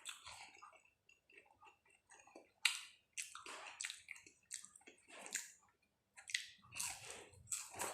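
Close-miked chewing of soft banana with cheese topping: wet, smacking mouth sounds in irregular short bursts.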